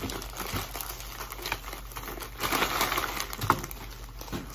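Plastic snack and candy wrappers crinkling and rustling as they are handled and shaken, with a couple of sharp clicks near the end.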